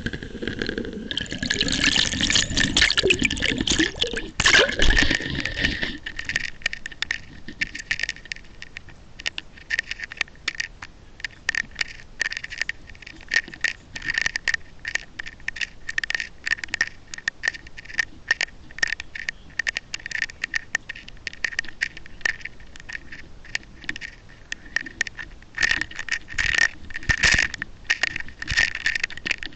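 Sound picked up by an underwater camera pulled through the water on a fishing line. A rush of water about a second in lasts several seconds, then gives way to a long run of irregular clicks and rattles, which grows busier near the end.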